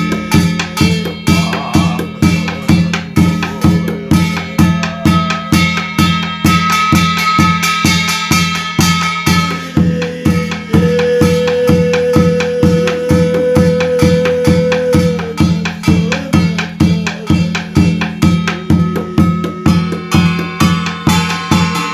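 Korean shaman's barrel drum (buk) beaten with a stick in a steady, even rhythm of about two to three strokes a second. Over it runs a buzzing, voice-like melody with one long held note about halfway through.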